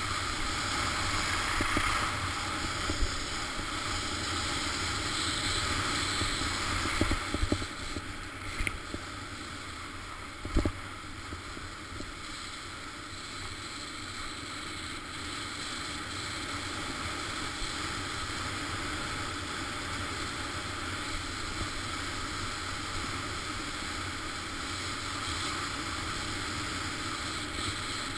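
Steady rush of wind on a GoPro camera's microphone mixed with the hiss of skis sliding over snow during a descent. A few sharp knocks stand out, the loudest about ten seconds in.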